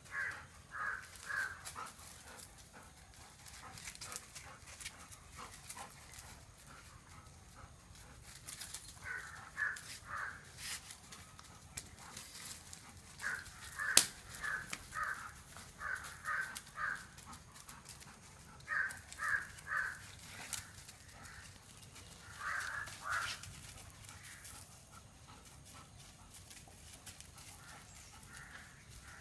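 A dog yapping in several quick runs of short high barks, about three or four a second, with quiet gaps between the runs. A single sharp click comes about halfway through.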